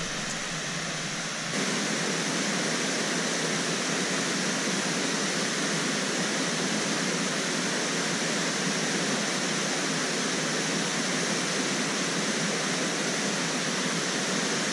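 Waterfall rushing in a steady, dense roar of water, a little louder from about a second and a half in.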